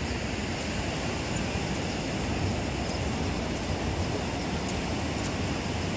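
Steady rumble of wind and ocean surf at the beach, an even roar with no distinct events.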